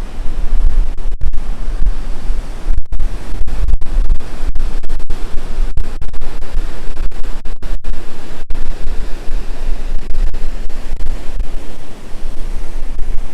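Strong wind buffeting the microphone, a loud low rumble that surges and drops, over the wash of surf.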